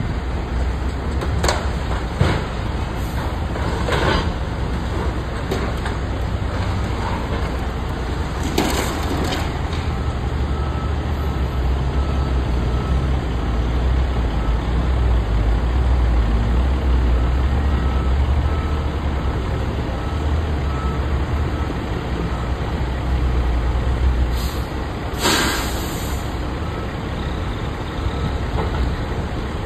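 Caterpillar high-reach demolition excavator's diesel engine running as a steady low rumble, with scattered cracks and crunches of the building being broken apart in the first ten seconds. Two short hissing bursts come about nine seconds in and again about twenty-five seconds in.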